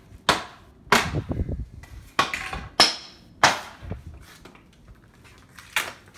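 Hammer blows on wooden pallet boards: about six sharp, irregular knocks, one of them with a brief metallic ring.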